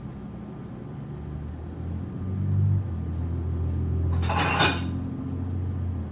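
Street traffic: a heavy vehicle's engine rumbling low, swelling about two seconds in, with a short, loud burst of hiss about four seconds in.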